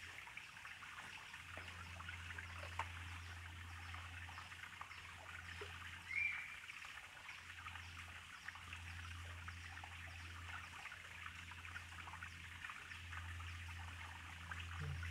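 River water flowing and trickling steadily over the rocks of a stream pool, with a short rising chirp about six seconds in and a low hum that comes and goes.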